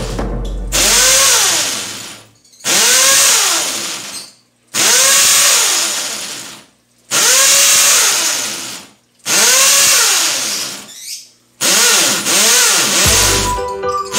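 Handheld power drill run against a tiled wall in short trigger bursts, about every two seconds, each spinning up fast and winding down as the trigger is let go. Background music comes in near the end.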